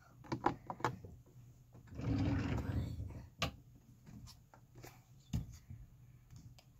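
Rummaging and handling noises: a few clicks and knocks, a loud scraping rustle about two seconds in, then sharp knocks as a small cardboard box is set down on a wooden table.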